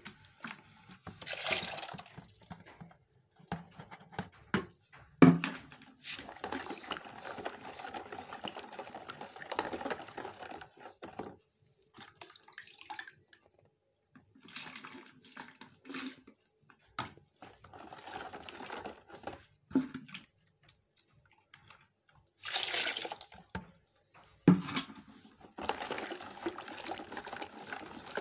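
Milky home-made bleach mixture being stirred with a wooden stick in a plastic bucket: stop-start sloshing and swishing of liquid with short quiet gaps. A few sharp knocks of the stick against the bucket, the loudest about five seconds in and another near the end.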